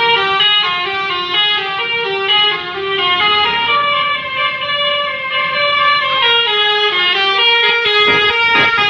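Basuri V3 telolet musical bus horn playing a tune: a melody of quick stepped notes that starts abruptly just before and carries on throughout, with a few sharp knocks near the end.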